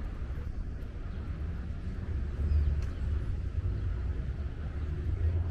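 Low, steady rumble of outdoor city ambience, swelling briefly about two and a half seconds in.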